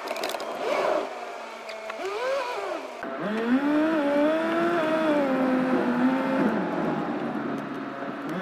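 Road and engine noise inside a moving Ford's cabin. About three seconds in, a voice hums a wordless tune that glides up and down for a few seconds.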